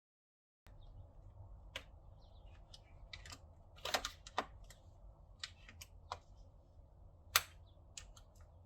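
Scattered light clicks and ticks of a screwdriver working at the clip on the intercooler charge pipe, prying it up, over a faint low hum; one sharper click stands out near the end.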